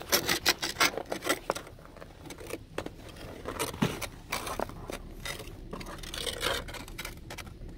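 Ice scraper scraping hard, thick ice off a car: a quick run of strokes in the first second and a half, then scattered single scrapes.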